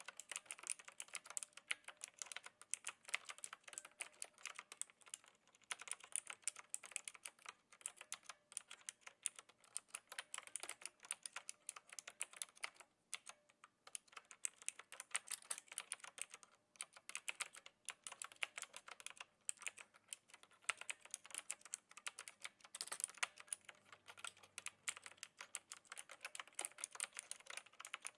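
Clicky blue switches of a Knewkey Rymek typewriter-style mechanical keyboard, typed on steadily with a gentle touch: a rapid, continuous run of key clicks broken by a few brief pauses.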